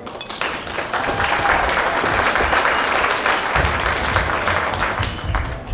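Audience applauding. The clapping builds over the first second, holds steady, then thins out near the end.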